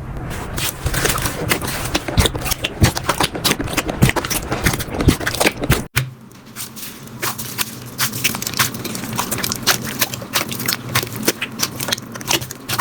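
Slime being handled, with dense crackling and popping clicks. The sound changes abruptly about halfway through, where a different slime takes over.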